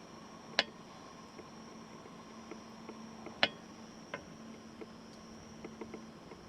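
Night insects trilling steadily on one high pitch, with two sharp clicks about half a second and three and a half seconds in, and a few fainter ticks.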